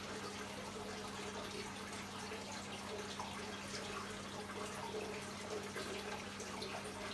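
Aquarium filter running: water trickling and dripping steadily into the tank, over a low steady hum.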